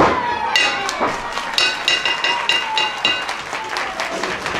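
A referee's hand slaps the canvas of the wrestling ring once at the start, the third count of a pinfall, then the ring bell is rung in quick strikes, about three a second, to end the match, over audience applause.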